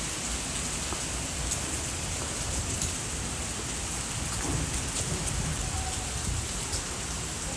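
Very heavy rain falling steadily: an even hiss with faint ticks of individual drops.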